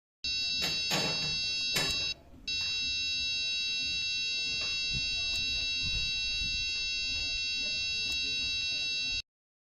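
A steady, high electronic buzzer-like tone made of several pitches at once, which breaks off briefly about two seconds in, then resumes and stops abruptly near the end. A few knocks sound in the first two seconds.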